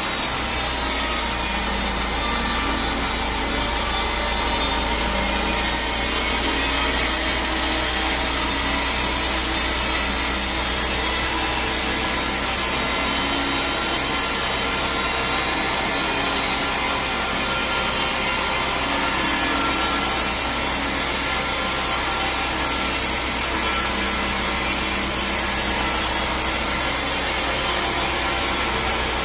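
Sawmill saw cutting through a log: a continuous cutting noise over the steady low hum of the machinery, with no pause.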